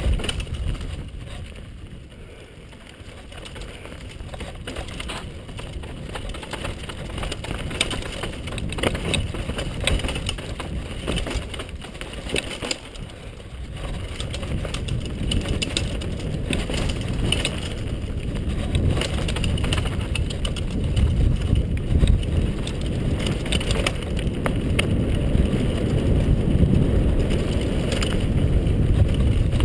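Downhill mountain bike running fast down a dirt trail: a steady low rumble of tyres and air over the microphone, with many short clicks and rattles from the bike over the rough ground. It dips about two seconds in, then grows louder through the second half.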